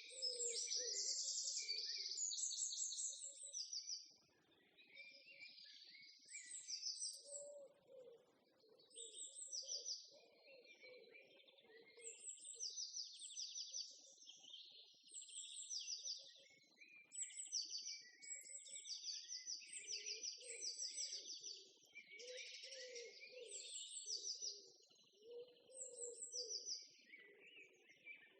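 Several birds singing together, mostly quick trilled phrases of rapidly repeated high notes, with fainter lower calls coming and going underneath.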